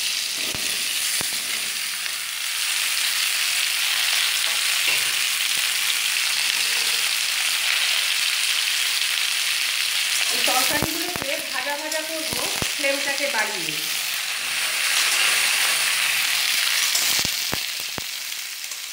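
Chopped vegetables sizzling as they fry in hot mustard oil in an aluminium kadai, with a steady hiss. A metal spatula stirs them, scraping and knocking against the pan now and then.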